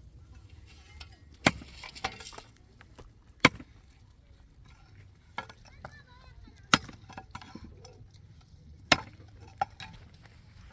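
A series of sharp knocks at irregular intervals, four loud ones about two to three seconds apart with a few fainter ones between, like blows from a hand tool.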